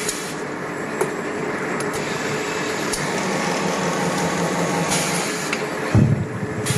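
Hot thread rolling machine running with a steady mechanical hum and a few light clicks, and one heavy clunk about six seconds in.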